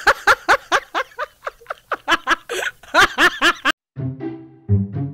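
A burst of high-pitched laughter, quick repeated 'ha-ha' pulses, that cuts off abruptly after about three and a half seconds. Background music with a low, repeating beat follows.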